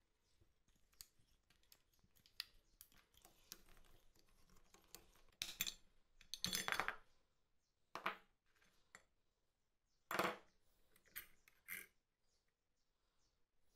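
Metal parts of an old glazing point driver being taken apart by hand: scattered clicks and clinks of the pin, pliers, coil spring and plunger. There is a longer clatter about halfway through and a sharp knock near the end.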